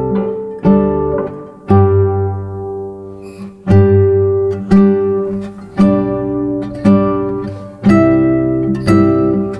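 Background music: acoustic guitar chords played about once a second, each ringing out and fading before the next.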